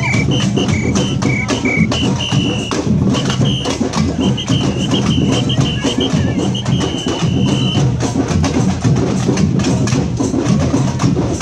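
Samba batucada percussion band playing a dense, steady drum rhythm. A high whistle sounds over it in short repeated blasts, then longer held notes that stop about eight seconds in.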